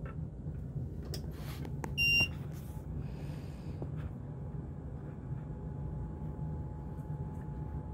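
Artillery Sidewinder X1 3D printer powering up: one short electronic beep about two seconds in, over a steady low hum. A faint, steady high tone sets in about five seconds in.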